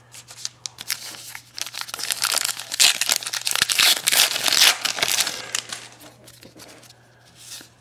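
A foil trading-card pack being torn open and its wrapper crinkled by hand, a dense crackling that is loudest in the middle seconds and dies down near the end.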